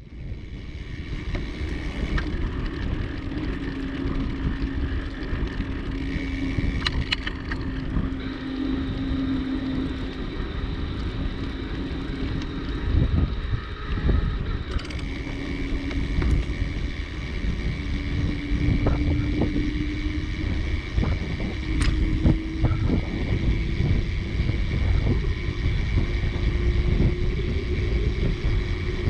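Bicycle riding along a path: wind buffeting the microphone and tyres rolling, with a steady hum that rises slowly in pitch and a few sharp clicks.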